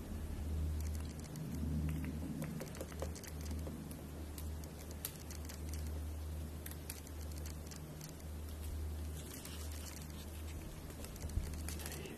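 Eurasian three-toed woodpecker pecking and prying at birch bark: irregular light taps and clicks, over a steady low hum.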